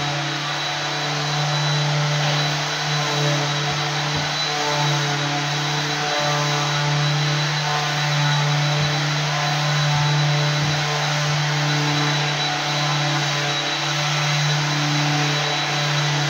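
Electric floor sanding machine running steadily: a constant motor hum with a thin high whine over a wide hiss, dipping slightly now and then.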